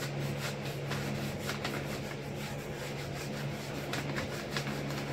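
Hands rubbing a self-adhesive foam traction mat down into a jet ski footwell and peeling off its paper backing: scratchy rubbing with short crinkling strokes as the air bubbles are worked out. A steady low hum runs underneath.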